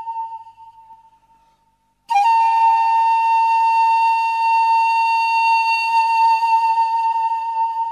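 Background music: a single sustained, flute-like note that fades out, then the same note sounding again about two seconds in and held steady until it begins to fade near the end.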